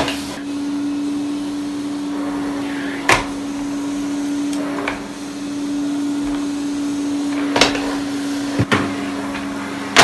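Canister vacuum cleaner running with a steady hum and rush of suction, with a few sharp knocks: one about three seconds in and two near the end.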